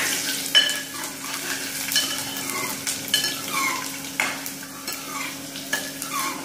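Garlic cloves sizzling as they fry in hot oil with cumin and mustard seeds for a dal tadka (tempering), while a metal spoon stirs them and scrapes and clinks against the aluminium pan every second or so.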